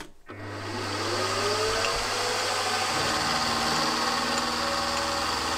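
Milling machine spindle motor starting and running up to speed, its whine rising in pitch over a steady hum; about three seconds in the note changes as the spinning end mill starts cutting the conrod blank.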